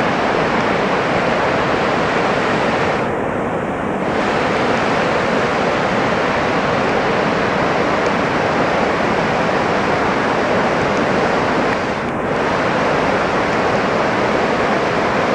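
A shallow mountain river rushing over rocks in white-water rapids: a loud, steady rush of water that goes briefly duller about three seconds in and again near twelve seconds.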